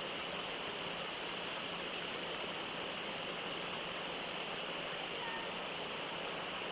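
Steady outdoor background hiss from a wildlife cam's microphone, even throughout, with a faint low hum under it.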